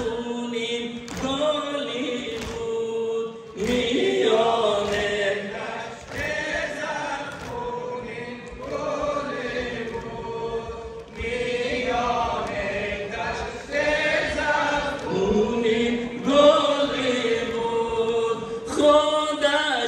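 A group of men chanting a nauha, a Shia mourning lament, together in long held notes. Regular sharp strikes of chest-beating (sineh-zani) run under the chanting.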